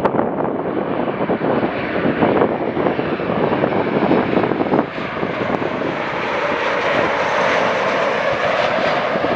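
Boeing 737-800 freighter's CFM56-7B turbofan jet engines on landing approach: a loud, steady rush of jet noise that grows brighter as the aircraft nears, with a steady whine coming in over the second half.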